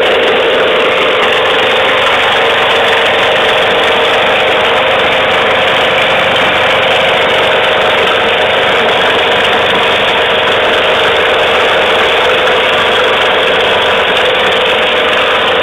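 A small motor running steadily with a loud, constant hum that does not change.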